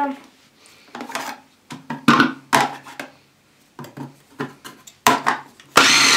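Plastic clicks and knocks as a Vitek food processor is fitted together and loaded with apple pieces. Near the end its motor starts running, loud and steady, grating the apples.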